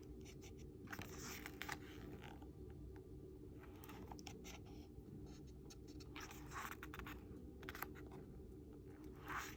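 Faint rustling and scraping of paper as a K-pop album's photobook and inserts are handled: a few short swishes and small clicks over a steady low hum.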